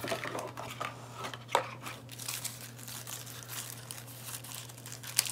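A few light clicks of a small cardboard box being handled, then a thin plastic bag crinkling from about two seconds in as it is handled and opened.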